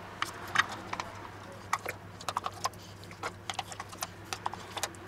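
A spoon scraping and tapping crème fraîche out of a plastic tub into a stainless steel bowl: a string of irregular light clicks and taps.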